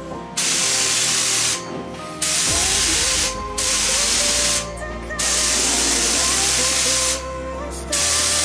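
Compressed-air paint spray gun hissing in five on-off passes as the trigger is pulled and released, laying the final coat of black paint on a car bumper. Faint background music underneath.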